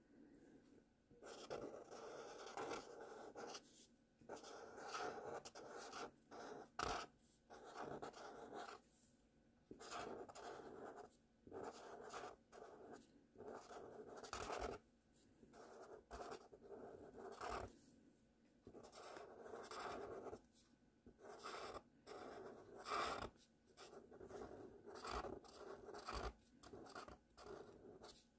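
Marker pen writing cursive letters on paper: a faint scratching in a run of short strokes with brief pauses between them, and a few light taps.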